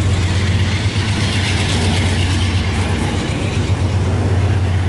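CSX freight train rolling slowly past at close range: a steady low rumble with a continuous rolling noise of wheels and cars on the rails.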